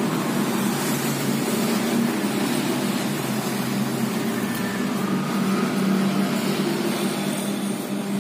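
Steady low hum of a running motor under an even background hiss.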